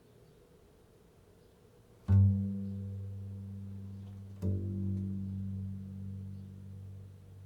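Two low notes plucked on a string instrument, the first about two seconds in and the second a couple of seconds later, each ringing on and slowly fading.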